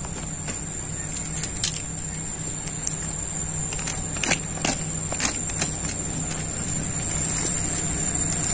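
A vehicle engine idling steadily under a constant high whine, with scattered sharp clicks and crinkles as plastic-wrapped packages are handled and opened.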